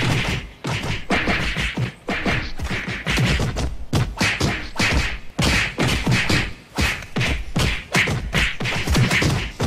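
Cartoon fight sound effects: a fast, unbroken string of punch and whack hits, several a second, coming in short clusters with brief gaps between them.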